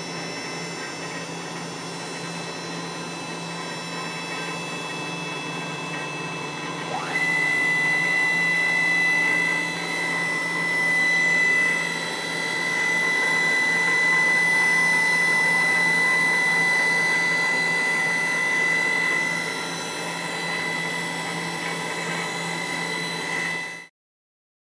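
Citizen BL-12A CNC Swiss-type lathe running with a steady machine hum. About seven seconds in, a whine rises quickly and settles into a steady high whine as the machine gets louder. The sound cuts off abruptly near the end.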